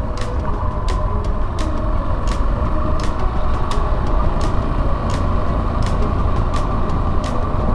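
Yamaha Serow 250's single-cylinder engine running steadily while riding on a forest road, under a heavy low rumble of wind on the microphone. Frequent sharp clicks, about two or three a second, cut through it.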